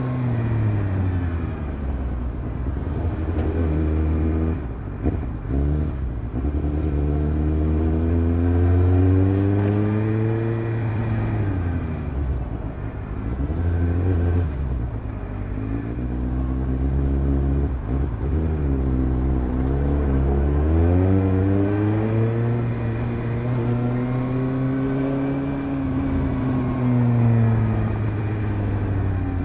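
Suzuki GSR750's inline-four engine through a Fuel stainless round micro exhaust with the dB-killer fitted, revs rising and falling over and over as the throttle is opened and shut at low speed. The revs hold steady for a while late on, then drop again near the end.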